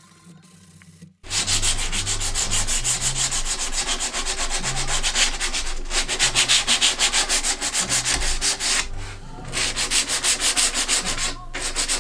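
Sandpaper rubbed by hand back and forth over the edges of wooden frame inserts, in quick, even rasping strokes. It starts abruptly about a second in, with a few brief pauses.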